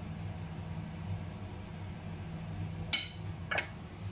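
Two sharp clinks of crockery, about three seconds in and again half a second later, as a ceramic plate of sliced onions is picked up, over a steady low hum.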